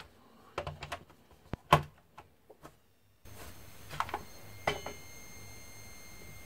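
Plastic clicks and knocks as a FRITZ!WLAN Repeater 300e is handled and plugged into a power strip. About three seconds in, a steady high-pitched beep starts from the powered repeater, a thin tone with higher overtones. The beep is the fault this unit has, traced to a failing 470 µF 16 V electrolytic capacitor.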